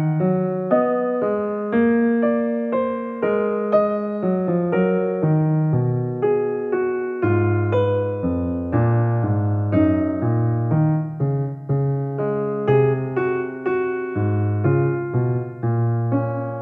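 Background music: a piano melody with chords, notes struck at a steady unhurried pace.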